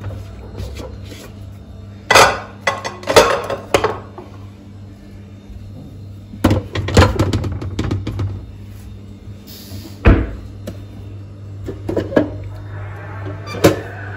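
Clatter and knocks of objects being handled, coming in several short groups of sharp impacts with one loud single knock near the middle, over quieter background music.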